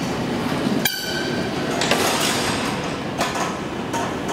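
Elevator doors sliding open on their track with a mechanical rattle and scattered clicks. A short high ringing tone sounds about a second in.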